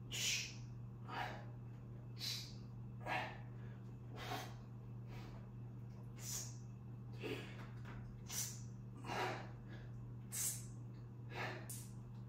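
A man breathing hard with the effort of one-arm dumbbell rows: short, sharp breaths about once a second, in time with the reps, over a steady low hum.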